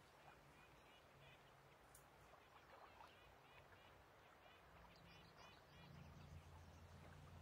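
Faint lake ambience: birds chirping in quick repeated calls, over a low steady hum that grows louder about five seconds in.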